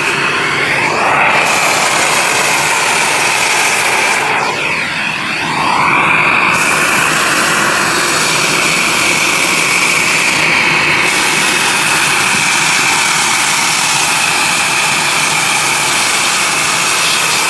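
Ariete 1700 W vacuum cleaner running steadily with a loud rushing whine and a high-pitched tone. The sound briefly shifts and sweeps as the airflow changes, once just after the start and again about four to six seconds in.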